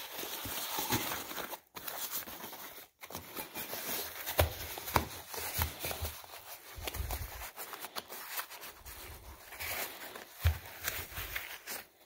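Wrapping material crinkling and rustling as a wheel center cap is unwrapped by hand, with many irregular sharp crackles and a few soft low bumps of handling.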